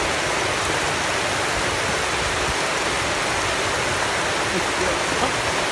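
Floodwater from an overflowing river rushing fast down a city street: a steady, dense rush of moving water.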